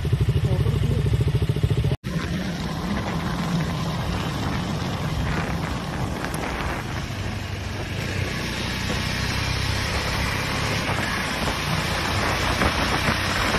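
Motorcycle engine idling with an even, rapid beat, then after an abrupt cut about two seconds in, the motorcycle running along the road with wind and road noise.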